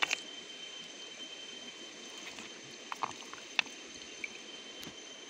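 Shallow stony stream trickling, with a few sharp clicks as stones in the water are disturbed. A faint, steady high-pitched whine runs underneath.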